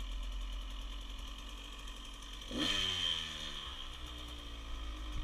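Small dirt bike engine idling, revved once about halfway through: the pitch jumps up sharply and then sinks slowly back to idle.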